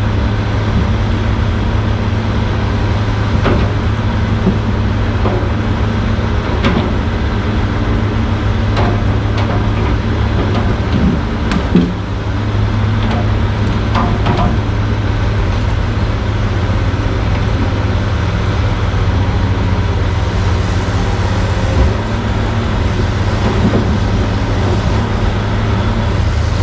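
Steady low drone of heavy diesel machinery as a CAT log loader grapples logs off a logging truck, with scattered knocks and clunks of logs, the loudest about twelve seconds in.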